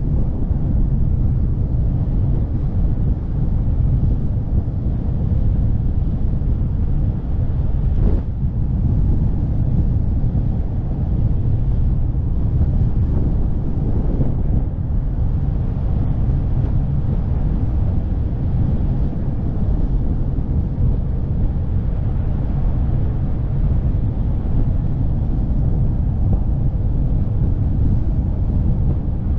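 Steady low rumble of wind on the microphone and rolling road noise from a velomobile in motion.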